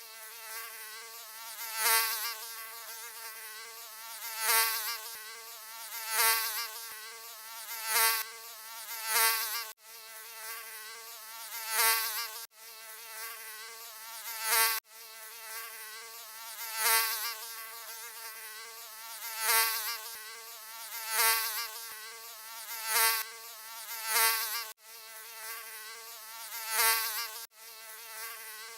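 Mosquito buzzing: a steady high-pitched whine that swells loudly every couple of seconds, as it would close to the ear. It breaks off abruptly several times where the recording is spliced.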